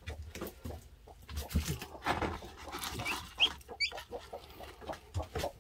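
Newly hatched chicks giving about three short, high, rising peeps in the second half, over light tapping and rustling.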